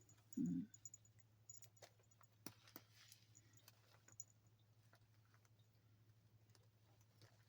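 Near silence with a low steady hum: faint scattered clicks of a latch hook tool pulling yarn through rug canvas, and one soft low bump about half a second in.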